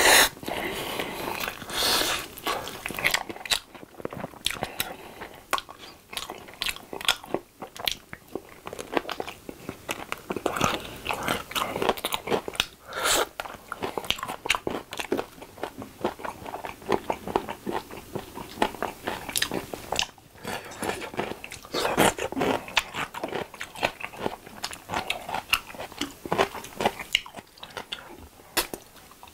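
Close-miked eating of yangnyeom (sweet-spicy sauced) fried chicken drumsticks: irregular crisp crunches of the fried coating and meat being bitten and chewed, quieter near the end.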